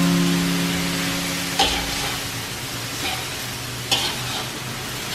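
Shredded cabbage and chicken sizzling in a wok while a metal spatula stirs and scrapes them, with sharper scrapes about a second and a half in and again near four seconds. A low held note fades out over the first two seconds.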